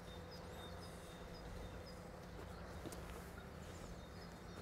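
Faint outdoor ambience: a small bird chirping over and over in short notes above a low, steady hum.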